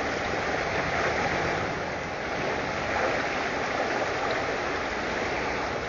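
Fast river current rushing steadily, a continuous even roar of moving water.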